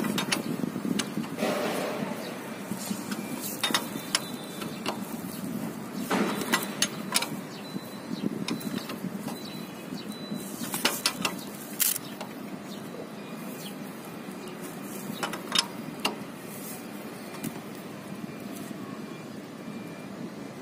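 Steady street traffic noise, with scattered sharp clicks and taps as the motorbike's oil drain plug is handled and worked by hand.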